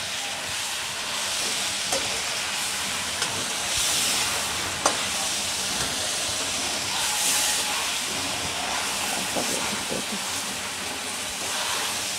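Whole marinated chicken frying in hot mustard oil in a pan: a steady sizzling hiss, with a few light knocks of the slotted spatula against the pan as the chicken is moved about.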